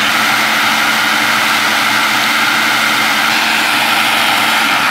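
Food processor motor running steadily, its blade whirling a thin, liquid purée of cucumber, avocado and Greek yogurt soup.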